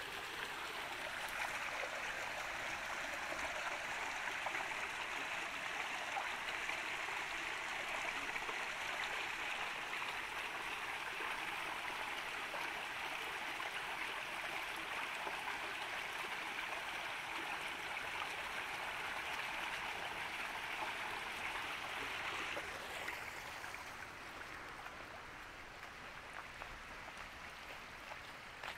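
Running water, a steady rush like a small stream, that drops lower and quieter near the end.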